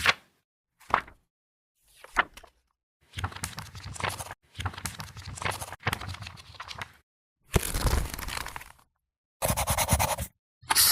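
A string of separate short sound effects with brief silences between them: a few quick sharp sounds, two stretches of crackly scraping noise, a short burst, then a fast rattle of about ten strokes a second.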